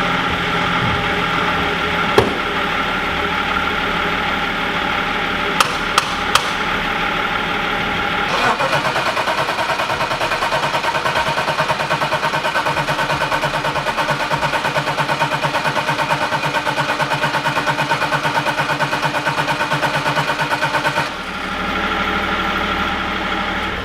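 A steady engine running, with a few sharp clicks early on. About eight seconds in, an engine is cranked over by its starter in fast, even pulses for about twelve seconds without catching. The engine is a freshly swapped BMW M52 2.8 double-VANOS straight-six, and the fault is in the fuel supply: either no petrol or the petrol lines connected the wrong way around.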